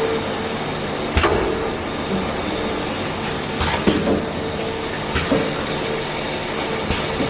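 Automatic bottle filling line running with its conveyor: a steady machine hum and whir, broken by a few sharp, irregular clacks about a second or two apart.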